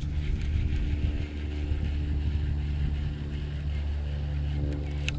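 An engine running steadily with a low, even hum, with a sharp click at the start and another near the end.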